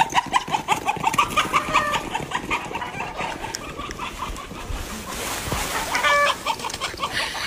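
Chickens clucking, a fast run of short repeated calls, with one longer, louder call about six seconds in.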